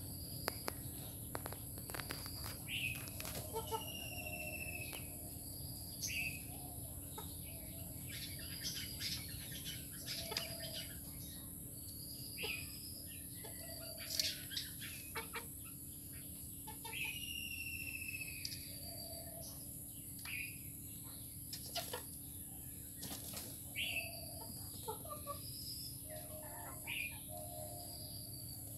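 Chickens pecking rice from a bowl on dirt: scattered sharp taps of beaks on the bowl and ground. Short high bird chirps and falling whistles repeat every second or two, with soft low chicken calls between.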